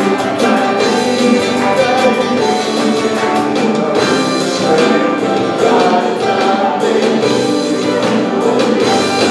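A live worship song: a male lead vocalist singing into a microphone, backed by a drum kit and a guitar.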